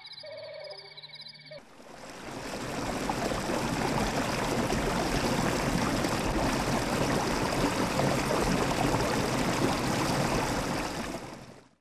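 Rushing water, like a stream or waterfall, fading in about a second and a half in and running steadily until it cuts off near the end, with a few faint high tones before it comes in.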